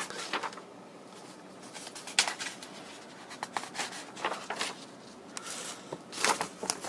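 Sheets of a printed kit manual being turned and handled, papery rustles in several short bursts, the strongest about two seconds in and again near the end.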